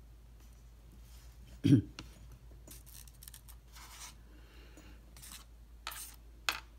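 Hands handling small parts and tools on a wooden desk: one loud knock about two seconds in, then a few short scrapes and clicks.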